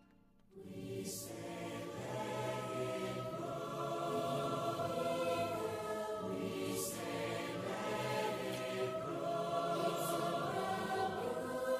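Choir singing over orchestral film score. It swells in about half a second after near silence and then holds sustained chords, with a few brief high shimmering accents.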